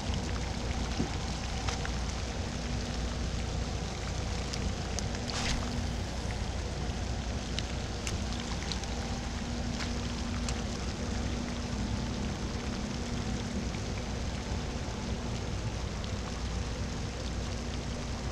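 Steady rain falling, with a few scattered close drops ticking.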